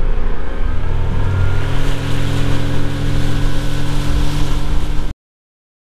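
Motorboat underway at speed: the engine runs with a steady hum, mixed with wind and water rushing past. The sound cuts off abruptly near the end.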